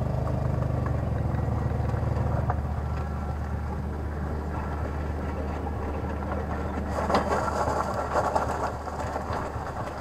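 Motorcycle engine of a tuk-tuk running steadily at low speed, with a brief louder clatter and rustle about seven seconds in.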